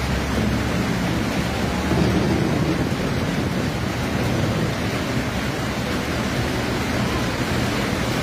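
A dense barrage of aerial firework shells bursting, the bangs so close together that they merge into one continuous rumble with hiss above it, a little louder about two seconds in.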